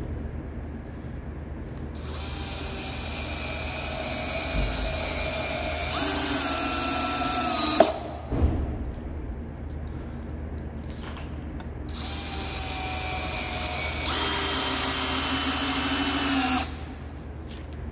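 DeWalt cordless drill driving long screws down through stacked 2x10 boards, twice. Each time the motor runs for about five seconds, speeds up partway through, then stops. The first run ends with a couple of sharp knocks.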